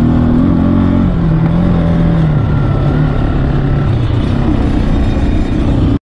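ATV engine running while the quad is ridden at speed, its pitch holding fairly steady and easing slightly lower; the sound cuts off suddenly near the end.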